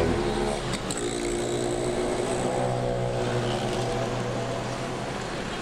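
Street traffic with one motor vehicle's engine droning at a steady pitch over the general road noise, the drone dwindling near the end.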